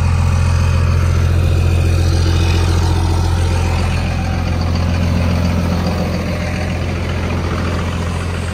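Second-generation Dodge Ram's 24-valve Cummins turbo-diesel inline-six idling, a steady low drone that eases off slightly near the end.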